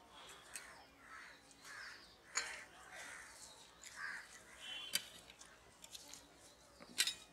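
Eating sounds close to the microphone, with three sharp mouth smacks or clicks about two and a half, five and seven seconds in, over a series of harsh bird calls.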